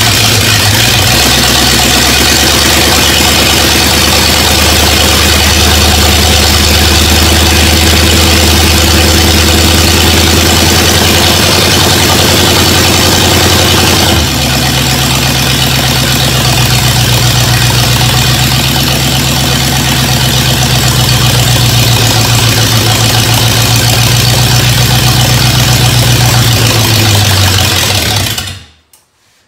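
Freshly rebuilt Ford 8BA flathead V8 running loud and steady on its first start after the rebuild. About halfway through, its speed steps up. Near the end it is shut off and stops abruptly.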